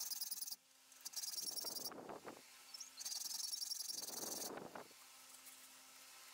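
Hand file rasping across the steel of a knife blank cut from a lawn mower blade and clamped in a bench vise: two long strokes about two and a half seconds apart, with a steady high chirring behind them.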